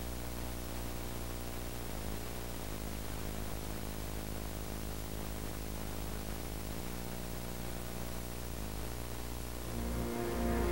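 Steady VHS tape hiss with a low electrical hum under a silent screen. Near the end, music starts to rise in.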